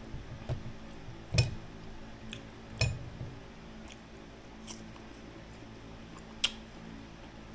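Close-up eating of crisp unripe green mango slices: a few sharp crunches with chewing, the loudest about a second and a half in, about three seconds in and near the end, over a low steady hum.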